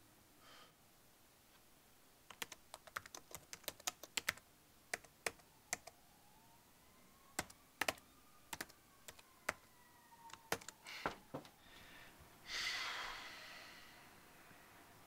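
Typing on a computer keyboard: irregular bursts of key clicks with short pauses between words. Near the end a short breathy rush of noise fades away.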